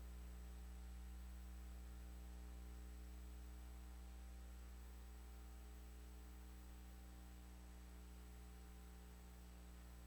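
Near silence: a steady low electrical mains hum with its overtones.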